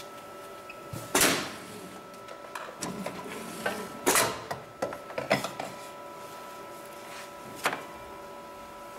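Pneumatic clamp cylinders of an industrial CNC pattern sewing machine (HIGHTEX 7273) actuating: four short, sharp bursts with clicks between them, over the machine's steady hum.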